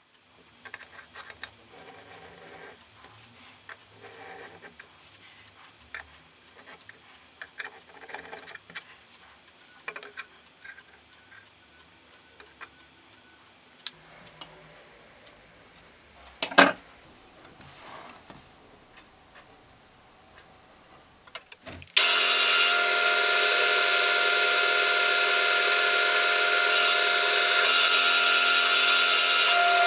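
Faint handling clicks and rubbing with one sharp click, then about two-thirds of the way through a drill press starts up and runs steadily, its bit boring through the steel tang of a meat cleaver.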